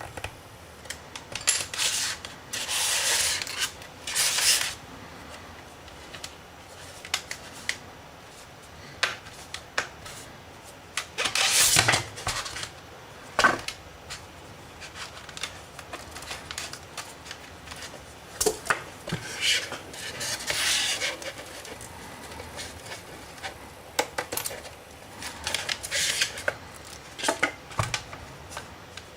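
ZTE E9Q+ tablet being taken apart by hand: irregular scraping and rubbing against the casing, with sharp clicks as the cover's clips give.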